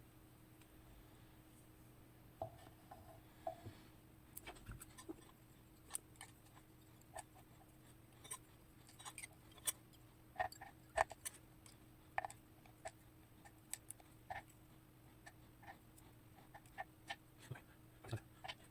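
Irregular light metallic clicks and taps from a KABA 14 pin-tumbler lock cylinder being taken apart by hand: tools, pins and springs knocking on metal, a few with a short ring. They begin after about two and a half seconds of near quiet.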